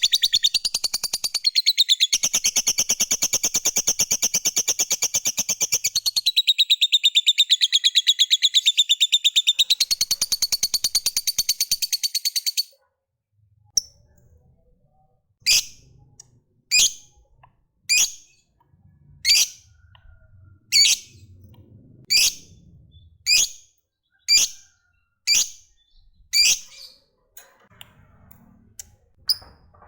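Lovebird giving a long, very rapid chattering trill (the 'ngekek' that keepers prize) for about twelve seconds. It then breaks off into single sharp chirps, about one a second.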